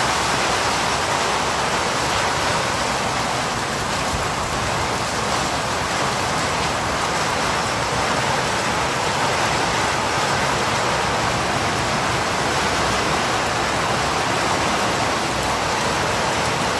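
Heavy rain pouring down, a dense, steady hiss of rain falling on the ground.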